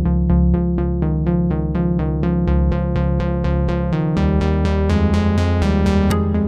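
Electronic background music: a synthesizer plays a steady run of short repeated notes, about five a second, over a sustained bass.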